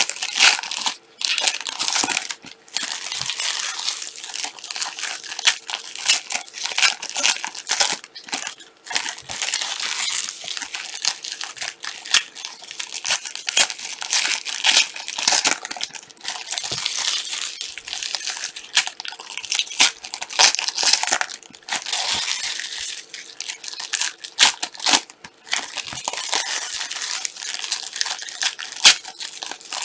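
Plastic wrapping on trading card boxes and packs crinkling and tearing as they are unwrapped, a continuous run of small irregular crackles.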